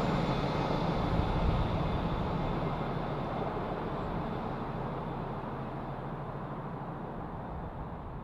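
Diesel-hauled rail-grinder train, double-headed by a Class 50 and a Class 56 locomotive, running away into the distance: a steady drone of engines and wheels that slowly fades.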